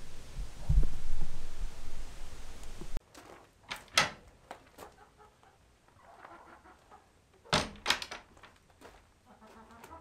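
For about three seconds, a low rumbling noise. It then cuts off abruptly, giving way to chickens clucking quietly among several sharp knocks, two clustered about a second after the change and a burst of three near the end.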